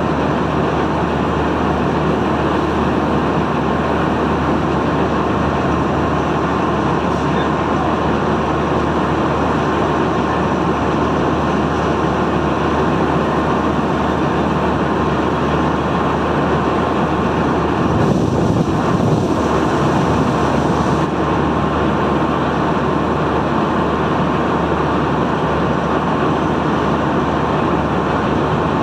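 Excavator's diesel engine running steadily under work, with a brief surge about 18 seconds in.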